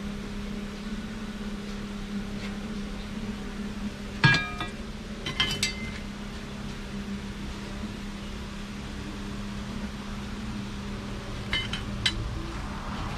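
A few hard objects clinking, the loudest about four seconds in ringing briefly, with two more near the end, over a steady low hum.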